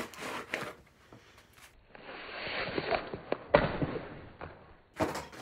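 Paper seasoning packets rustling and crinkling as they are handled and pulled from the kit's box. A sharp thump about three and a half seconds in comes as a couple of packets drop.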